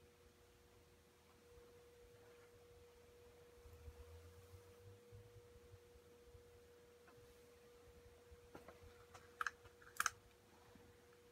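Near silence with a faint, steady high hum. A few small sharp clicks come about nine and ten seconds in.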